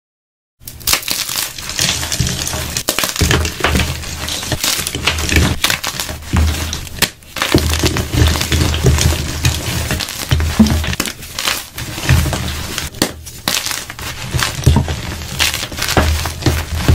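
Hands crushing and squeezing blocks of blue-dyed gym chalk: a dense, irregular run of crunching and crumbling as the blocks break into chunks and powder, starting about half a second in.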